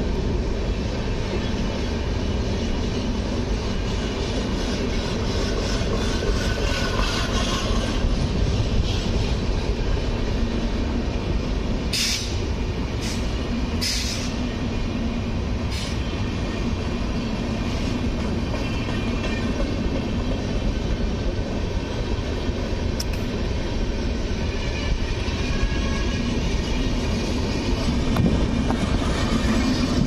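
Indian Railways passenger coaches rolling past on the track: a steady rumble of wheels on rails, with a few sharp clicks about twelve to sixteen seconds in.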